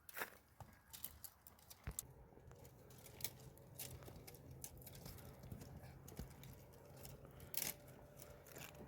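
Very quiet background with a few scattered small clicks and knocks and a faint steady low hum.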